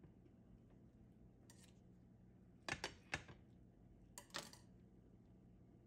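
Kitchen utensils clicking and scraping against a ceramic plate while a slice of omelette is cut and lifted: three quick clicks near the middle, then a short scrape about a second later, over a faint low hum.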